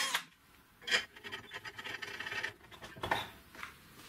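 An electric drill stops just after the start as the bit is pulled from the steel collar, followed by scattered light scrapes and a few sharp clicks of metal workpieces being handled.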